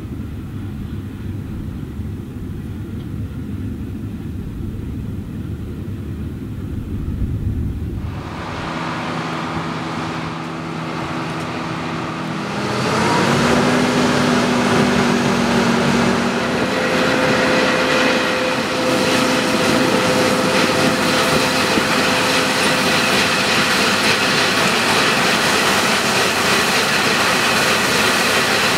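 Claas Lexion 670 Terra Trac combine harvester working in wheat. At first there is only a low rumble. About eight seconds in, steady whining tones of the engine and threshing machinery come in, and about thirteen seconds in the sound grows much louder and stays so.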